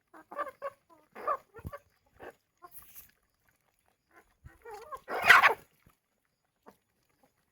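A series of short animal calls from farm animals, with one much louder call about five seconds in.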